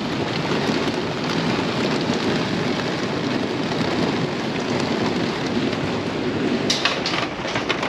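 Hailstones pelting the RV's roof and windows in a dense, steady clatter, with a few sharper, louder hits near the end.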